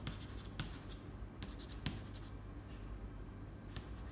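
Soft pastel stick rubbing and scratching on paper, with a few sharp ticks.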